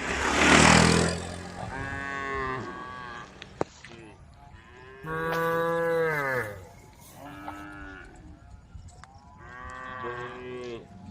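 Cattle mooing repeatedly. It opens with a loud, rough, breathy bellow, followed by several drawn-out moos that rise and fall in pitch; the loudest and longest comes about five seconds in.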